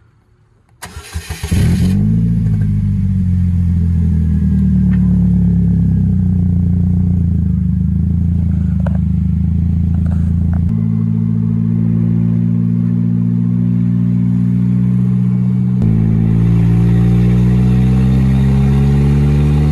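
Polaris Slingshot's engine starting from the push button about a second in, cranking briefly and catching, then running steadily. Its pitch changes abruptly twice and climbs over the last few seconds as it pulls away.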